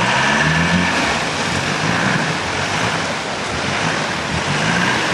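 Land Rover Discovery 4x4 driving through a flooded stream bed, its engine running under load beneath a steady rush of water splashing around the wheels.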